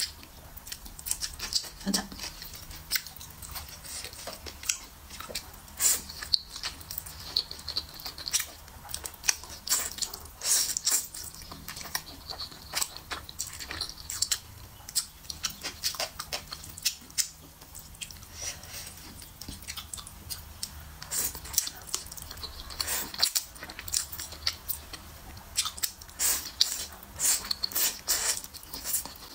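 Close-miked mouth sounds of eating sticky hot dry noodles: slurping strands in and chewing, a dense, irregular stream of short wet smacks and clicks.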